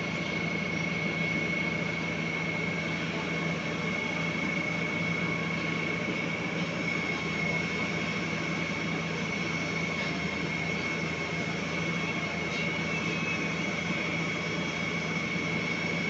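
Truck-mounted SANY concrete boom pump running steadily: a diesel engine drone with a steady high-pitched whine over it.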